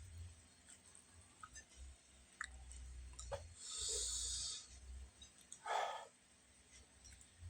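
Eating sounds: chewing with scattered small clicks, a breathy hiss about four seconds in, and a short louder sound just before six seconds.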